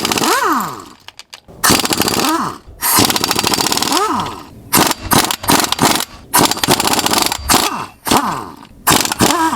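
Half-inch-drive air impact wrench hammering in several bursts of about a second each. After most bursts its air motor whines down in pitch.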